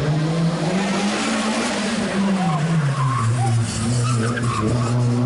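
Turbocharged Honda D16 four-cylinder engine of a Civic driven hard through a tight chicane, its note climbing over the first two seconds and then dropping, with the tyres scrubbing and squealing through the turn.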